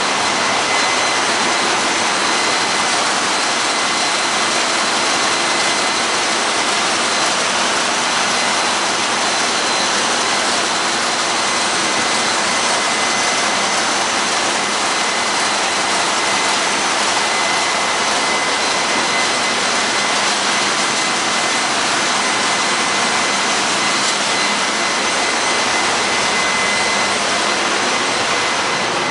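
Steady, loud din of a tanker's engine-room machinery, with a thin high whine riding over it. It eases off slightly near the end.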